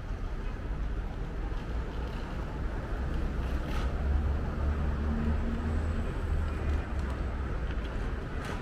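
City street ambience with the low rumble of a passing motor vehicle, swelling from about three seconds in and fading again near the end.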